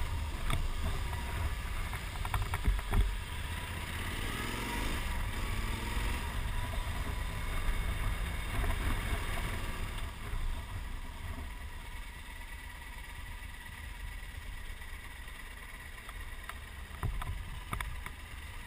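Motorcycle riding noise on a bike-mounted camera: wind rushing over the microphone over the engine's low rumble, with a brief gliding change in engine pitch about four to five seconds in. The sound is quieter in the second half, and the bike is at a standstill near the end.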